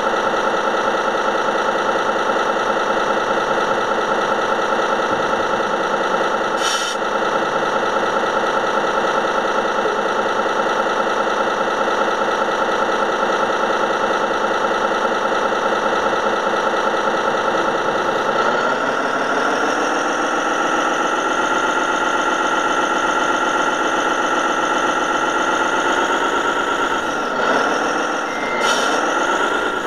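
Simulated diesel truck engine sound from an RC model truck's sound module: a steady idle that revs up about eighteen seconds in and holds higher, dropping and climbing again twice near the end. A short click about seven seconds in.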